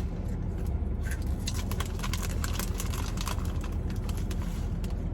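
Steady low hum of a room air conditioner, with a run of small mouth clicks and smacks from chewing food through the middle.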